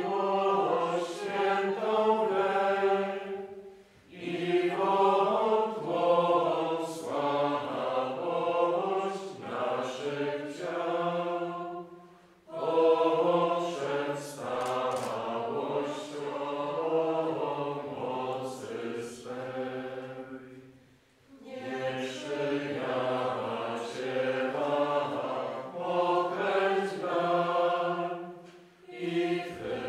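Men's voices singing a slow, chant-like hymn in long phrases of about eight seconds, each followed by a short pause for breath.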